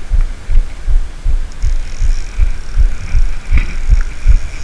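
Spinning reel being cranked while playing a hooked carp, heard as a steady run of dull low thumps, about three a second. A faint high whine comes in about a second and a half in, with one sharp click near the end.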